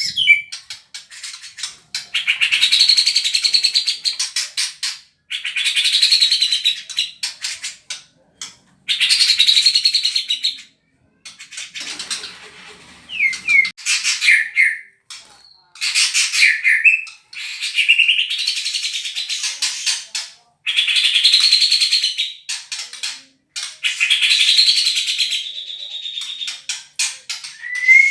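White-rumped shama (murai batu) singing rapid, harsh 'tembakan' bursts copied from the cucak jenggot, each burst two to three seconds long, repeated about seven times with short falling whistled notes between them.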